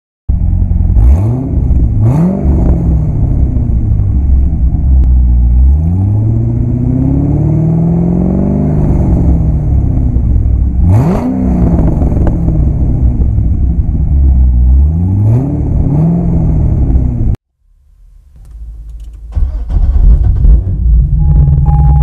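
Chevrolet Corvette C6 Z06's 7.0-litre LS7 V8 revving hard several times, each time climbing quickly in pitch and falling back, with one longer, slower climb and fall in the middle. The sound cuts off suddenly about three-quarters of the way through, and a low rhythmic throb then fades in.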